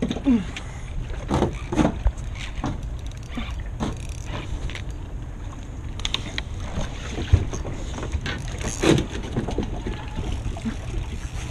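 Wind rumbling on the microphone aboard a kayak, with scattered short knocks and clicks from the rod, reel and hull being handled.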